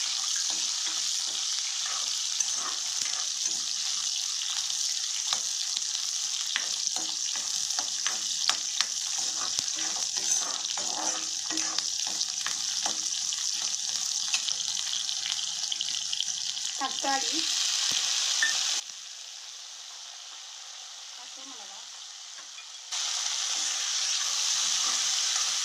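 Oil sizzling steadily as shallots and garlic fry in an iron kadai, with a metal ladle scraping and knocking against the pan as it stirs. Near the end the sizzle drops away for a few seconds, then returns.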